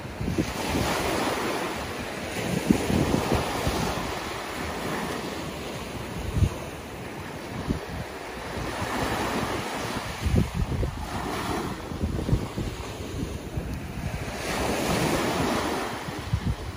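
Small surf waves breaking and washing up the sand, the wash swelling and fading every few seconds, with gusts of wind buffeting the microphone.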